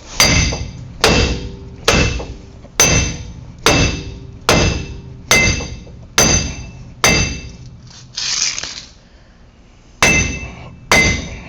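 Hammer blows on metal, about one a second, each strike ringing, as a corroded wheel hub assembly is driven out of a Ram 1500's aluminum steering knuckle. There is a short pause with a brief scrape a little after 8 seconds in, then two more blows.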